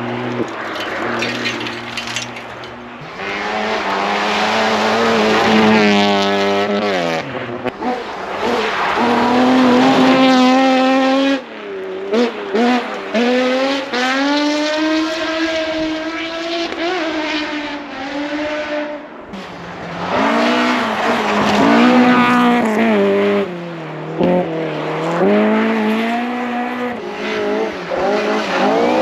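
Rally car engines at full throttle on a special stage, revving up and dropping back again and again as the drivers shift gears and lift for corners.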